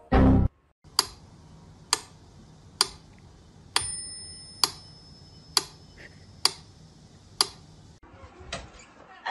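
A short loud burst, then sharp ticks like a clock's, about one a second and eight in all, with a faint high tone coming in near the middle.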